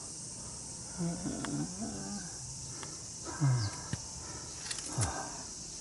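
Cicadas droning steadily in the summer foliage, a high, even hiss, with a man's few short low mumbles and sighs over it.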